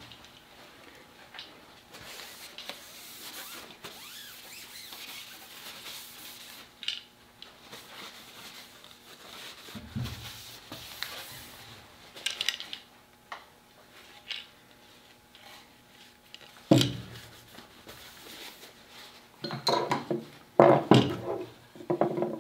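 A cloth rubbing over a side-by-side shotgun as it is wiped down, with scattered knocks and light metallic clinks as the gun is handled. The loudest knocks come as a single one about two-thirds of the way in and a quick cluster near the end.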